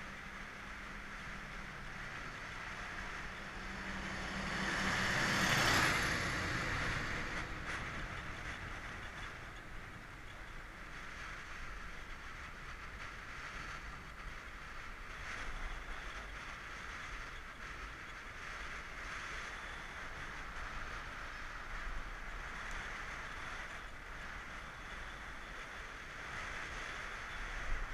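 Wind rushing over the microphone of a camera mounted on a bicycle coasting fast downhill, with a steady hiss of airflow and tyres on asphalt that swells louder about five seconds in.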